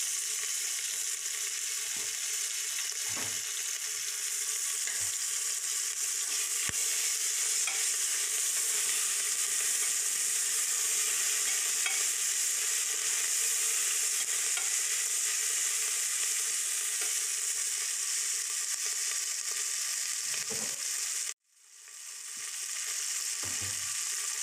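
Ginger paste, turmeric and whole spices frying in hot oil in a pan, a steady sizzle, with a few light knocks as the mixture is stirred. The sound cuts out suddenly near the end and fades back in.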